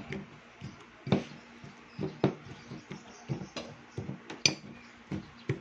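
A spoon clinking and scraping against a dish as it mashes wilted oregano leaves to press out their juice, in irregular knocks, about a dozen over five seconds.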